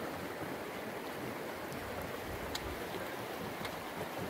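Steady rushing of fast river water around the boat, with a single light click about two and a half seconds in.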